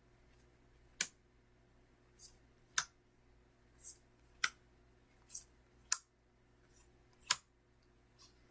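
Magic: The Gathering cards being handled: about eight irregular sharp clicks and brief high swishes of card against card over a few seconds.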